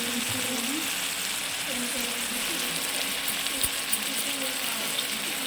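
Mixed vegetables sizzling steadily in hot oil in a pan, with a few light clicks as they are stirred.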